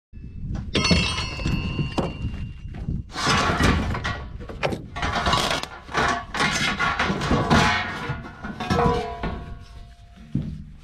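A run of irregular thuds and clanks, the first few with a metallic ring.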